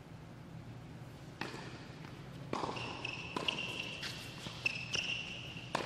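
Tennis ball struck by rackets during a doubles rally, four sharp hits in all, the first about a second and a half in and the last near the end. Between the hits, sneakers squeak on the hard court.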